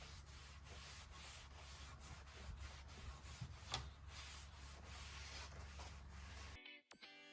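Faint, repeated rubbing strokes on cedar wood, about two to three a second, over a low steady hum. Music starts near the end.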